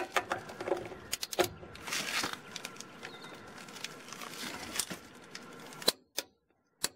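Torque wrench and socket being fitted onto a truck lug nut and pulled to tighten it: scattered metal clinks and rustling, then a few sharp separate clicks near the end.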